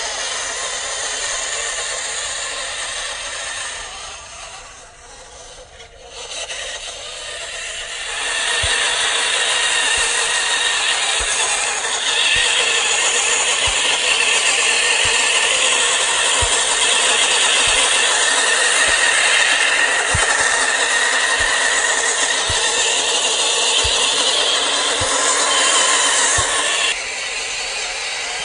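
Roc Hobby 1/12 Kubelwagen RC car's electric motor and gearbox whining as it drives over gravel, with noise from the tyres on the stones. It dips quieter for a couple of seconds early on, runs louder from about eight seconds in, and drops off suddenly shortly before the end.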